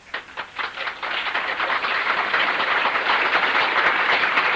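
Audience applause: a few separate claps at first that swell within about a second into steady, dense clapping.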